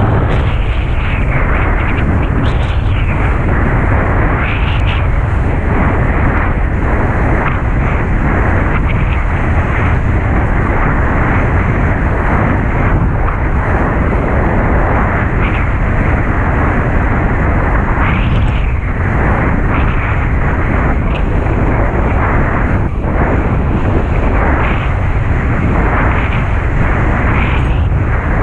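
Strong wind buffeting the microphone during a kitesurfing run: a loud, steady rushing rumble with brief gusty swells.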